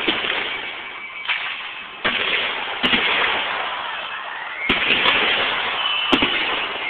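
Aerial fireworks: about six sharp bangs of bursting shells, the first a little over a second in, with crackling and hissing between them.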